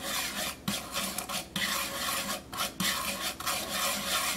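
Table salt being dry-roasted in a nonstick pan, stirred round and scraped against the pan's surface with wooden chopsticks: a gritty rasping in repeated strokes with short breaks between them.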